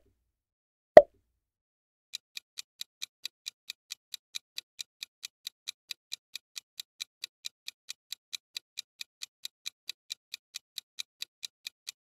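A single pop sound effect about a second in, then a quiz countdown timer's clock-tick sound effect: an even run of short, sharp ticks, roughly four to five a second.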